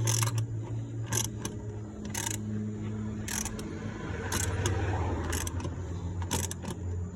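Sharp metallic clicks and clinks of hand tools and air-intake parts being handled and fitted back together, over a steady low hum.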